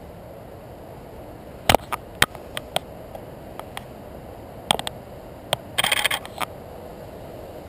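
Sharp clicks and clatter from handling a DSLR camera with a white telephoto lens: scattered single clicks starting a couple of seconds in, then a quick rattling run of clicks a little after six seconds.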